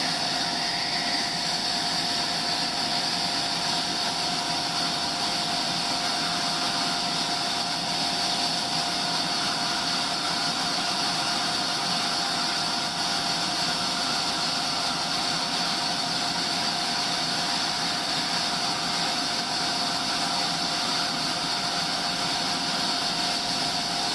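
Sawmill machinery running steadily with a constant high hum and whine, without a break or change in pitch.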